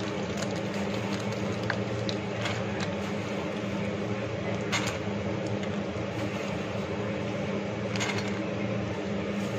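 A steady low mechanical hum, with a few light taps and clicks as fox nuts are dropped by hand into a metal kadai and touch the spatula. The clearest taps come about halfway and near the end.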